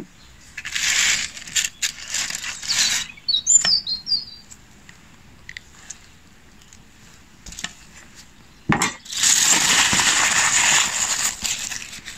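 Aluminium foil crinkling and rustling as the wrapped roast beef is handled, in two stretches, the second, near the end, the louder. A bird chirps briefly in between.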